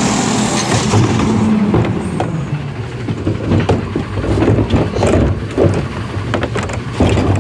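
Automated side-loader garbage truck running, its diesel engine and hydraulic lift arm working as the arm lowers the emptied cart and retracts, with a steady hum in the first second or two and repeated metallic clanks and knocks from the arm and gripper.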